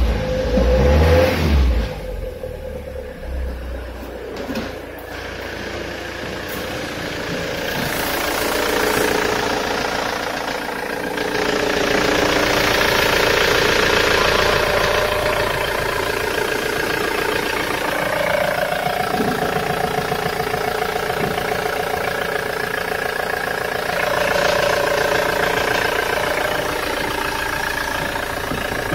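Ford Transit 2.4 turbo-diesel engine (FXFA) running: held at raised revs for about the first two seconds, then idling steadily with its diesel knock, heard up close in the engine bay.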